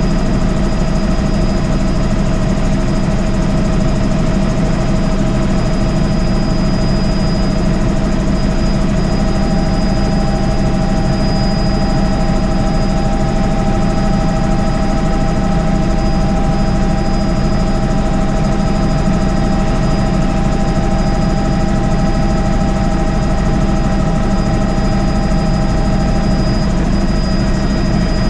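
A helicopter in flight, heard from inside the cabin: the engine and rotor make a loud, steady drone with a thin, high whine over it.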